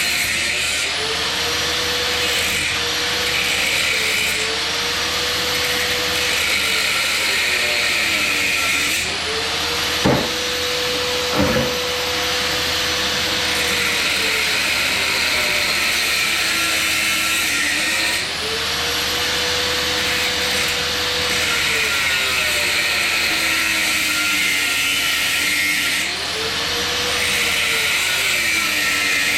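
Electric power tool running steadily while cutting through brass relief valves. Its motor pitch dips and recovers every several seconds as it loads down in each cut. Two sharp knocks come about ten and eleven and a half seconds in.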